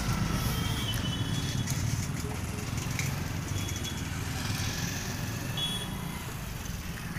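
Steady low rumble of street traffic, with a few short high-pitched tones, like distant horn toots, over it.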